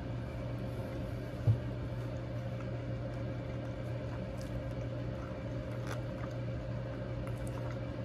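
Eating at a table: a fork clicking and scraping in a foam takeout container, with soft chewing, over a steady low hum. A single dull bump about a second and a half in.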